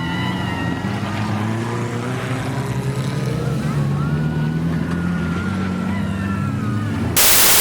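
Jeep engine running steadily, its pitch drifting slightly. Near the end a sudden loud hiss cuts in for about a second.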